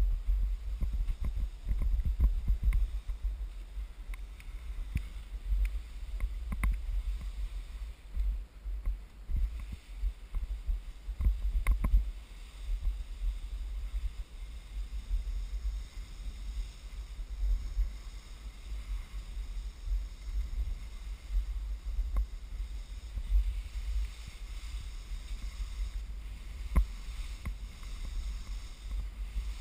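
Skis sliding and turning through wet, slushy spring snow, heard under a heavy, fluctuating wind rumble on the camera's microphone, with a few knocks along the way.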